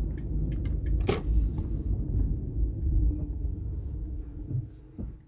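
Low rumble of a car, heard from inside the cabin, with a sharp knock about a second in; it fades away near the end.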